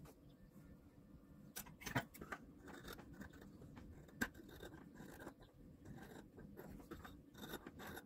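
Scissors cutting through fabric on a table: a run of faint snips, with two sharper ones about two and four seconds in.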